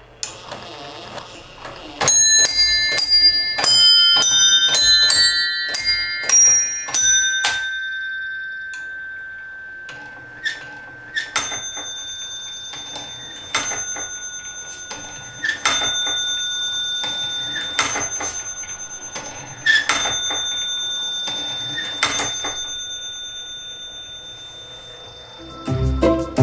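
Automaton clock's brass bells struck by mallets: a quick chime tune of about a dozen ringing notes at different pitches, then six single strokes on one bell about two seconds apart, each ringing on and fading slowly.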